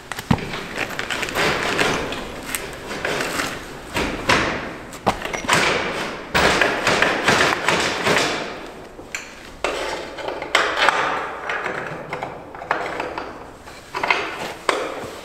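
Gear being handled and packed away by hand: irregular rustling with scattered knocks and thuds throughout.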